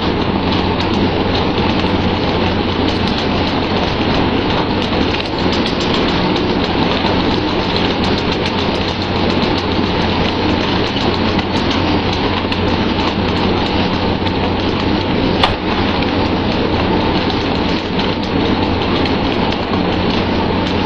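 Steady rain-like rush of water splashing against the sea alongside a tuna fishing ship, over a low steady hum from the ship. Scattered clicks and knocks run through it, with one sharp knock about fifteen seconds in.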